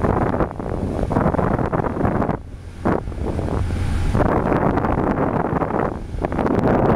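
Wind buffeting the microphone in loud, gusty rumbles, dropping off briefly about two and a half seconds in.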